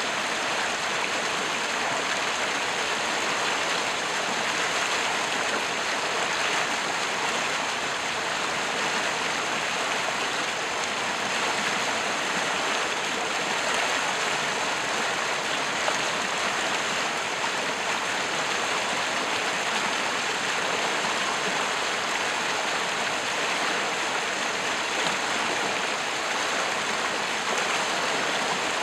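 Rain-swollen floodwater rushing fast down a narrow channel: a steady, unbroken rush of churning water.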